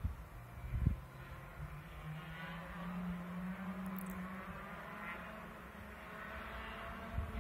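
Two-stroke racing kart engines running on the circuit, out of sight: a steady buzzing engine note that rises a little in pitch in the first few seconds and then holds. A low bump of wind or handling on the microphone about a second in.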